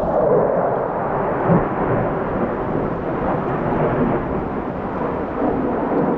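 Fighter jet flying over low, a loud, steady rumbling rush of engine noise.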